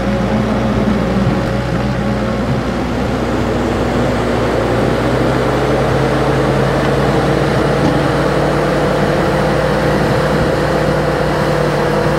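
Case Minotaur DL550 compact dozer loader's diesel engine running steadily as the machine works, with a constant whine above the engine note.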